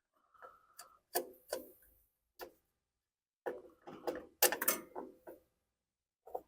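Irregular clicks and clinks of hand tools and metal carburetor parts being handled, with a busier run of knocks around the middle.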